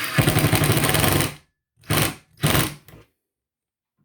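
Power screwdriver driving a screw into a cabinet door hinge, running with a rapid hammering rattle for about a second and a half. It stops, then gives two short bursts and a brief blip.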